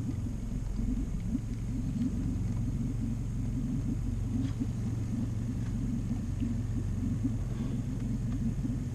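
Small boat motor running steadily at low speed, a constant low hum.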